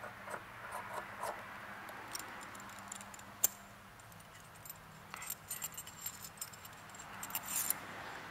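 Small metallic clicks and clinks of a hardened steel gauge pin in the drilled bore of a stainless steel part as the pin is pushed in and the part is handled. There is one sharper click about three and a half seconds in and a quick run of light clicks near the end.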